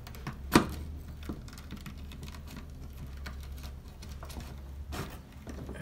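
Small clicks and taps of pliers and stiff wire against a plastic DC isolator switch and its enclosure as the wire is pushed into a terminal, with one sharp click about half a second in.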